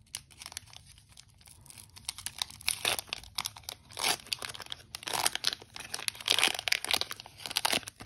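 Foil Pokémon booster pack being crinkled and torn open by hand, an irregular run of crackles and rips that grows louder in the second half.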